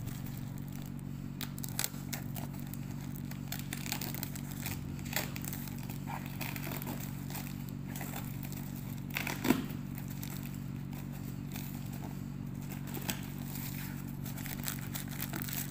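Plastic courier mailer bag crinkling and tearing as it is ripped open by hand: scattered crackles and rustles, with one sharper snap about nine and a half seconds in, over a steady low hum.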